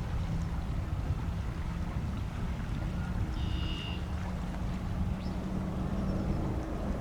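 Low, steady rumble of jet airliner engines, with a faint hum that rises slightly in pitch partway through. A short high-pitched tone is heard about halfway in.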